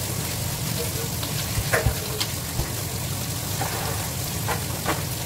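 Tap water running into a stainless steel kitchen sink, with dishes or utensils clinking a few times, over a steady low hum.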